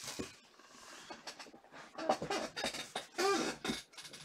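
Rustling and crinkling of trading-card pack wrappers and box packaging being handled and torn open, in irregular bursts. A short throaty vocal sound comes a little past the middle.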